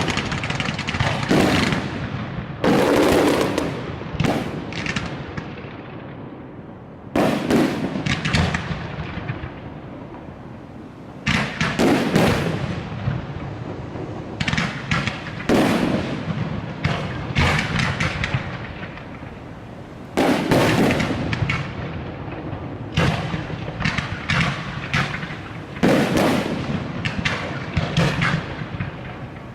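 Aerial fireworks shells bursting one after another, a sharp bang every few seconds, each fading away in a long echoing tail. Some bursts break into quick clusters of crackling reports.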